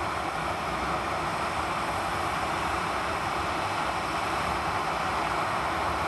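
ATR 72-600 twin turboprop on final approach: a steady rushing engine and propeller noise that slowly grows louder as the aircraft nears.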